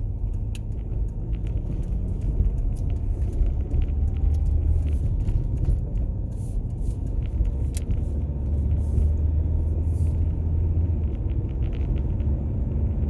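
Steady low rumble of a car driving on the road, with scattered faint ticks.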